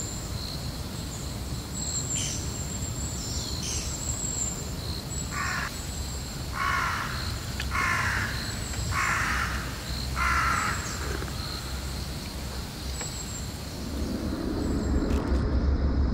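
A crow cawing five times, about a second apart, over a steady high chirring of insects.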